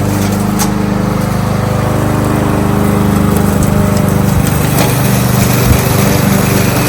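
Kohler XT-675 single-cylinder engine on a Yardworks front-wheel-drive push lawnmower running steadily at speed, with a few brief sharp clicks.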